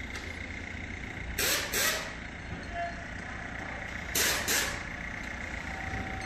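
Short sharp hisses of air, heard in pairs twice (about a second and a half in, and again about four seconds in), over a steady low rumble.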